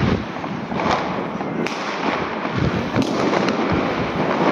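Fireworks and firecrackers going off all around in a continuous crackle and rumble, broken by sharp bangs every second or so.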